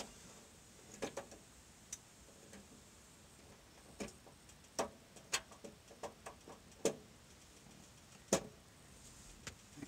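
Faint, irregular clicks and ticks, about a dozen scattered over several seconds, as a Mr. Heater Buddy portable propane heater is turned down from high to low.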